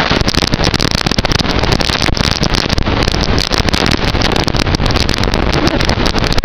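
Loud, harsh crackling static: a dense rush of noise full of rapid clicks, typical of a distorted or glitched audio track.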